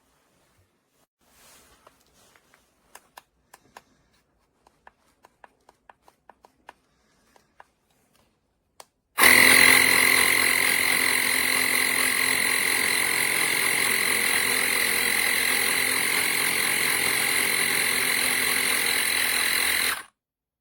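A series of light clicks, then a CYCPLUS 150 PSI battery-powered portable mini compressor starts abruptly about nine seconds in. It runs steadily with a high whine for about eleven seconds, then cuts off suddenly.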